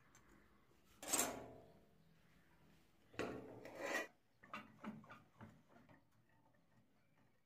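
Metal scraping and knocking: one sharp scraping clatter about a second in, then a longer rasping scrape and a run of short scrapes and knocks as a rusty hacksaw frame is handled and clamped in a steel bench vise.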